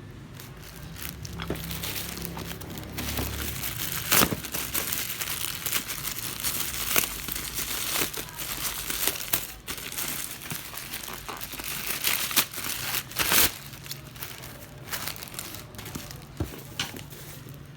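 Crinkling and rustling of packaging being handled, with many sharp clicks and several louder snaps through the stretch.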